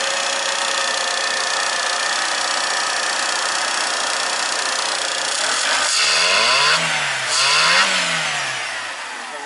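VW Polo 3 semi-injection petrol four-cylinder engine idling steadily. It runs smoothly, 'on a hair', after its repair. About six seconds in, the throttle is blipped twice in quick succession, the revs rising and falling each time before settling back to idle.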